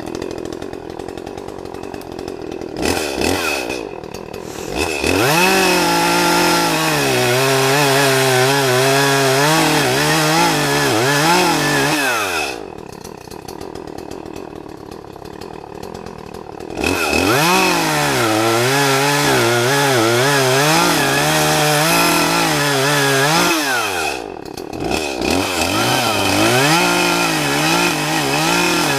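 Chainsaw running at full throttle while cutting into a tree trunk, its pitch wavering under load. It drops back to idle for a few seconds in the middle, revs up again and cuts on, with a short drop near the end.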